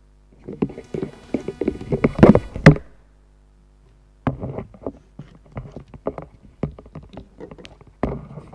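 Taps, knocks and light thumps of things being handled on a wooden lectern. A dense cluster comes first, loudest about two seconds in, then after a short pause a run of lighter clicks and taps.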